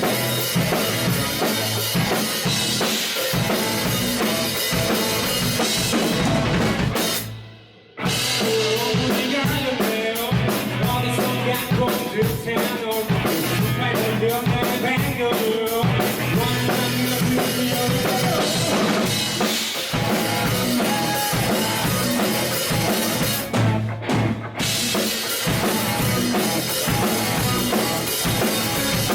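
A live band playing with a full drum kit: kick, snare and rimshots under other instruments. About seven seconds in the whole band stops dead for a moment, then comes back in together, and there is another short break near the end.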